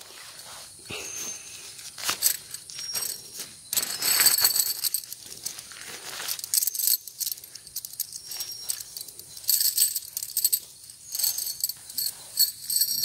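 Irregular rustling and clattering of objects being handled, with light metallic clinks and jingles scattered through it.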